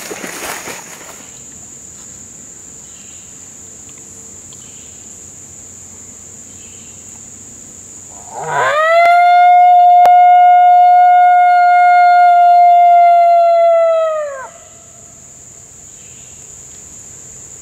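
Coyote lone howl blown on an MFK Mofo Howler hand call. One long howl about six seconds long starts about eight seconds in, swooping up, holding a steady pitch, then dropping off at the end. A steady high insect buzz runs underneath.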